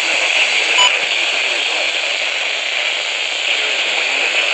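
Steady radio static hiss from a receiver, with one short click a little under a second in.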